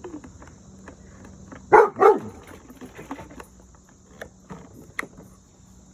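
A dog barks twice in quick succession about two seconds in, among scattered light clicks.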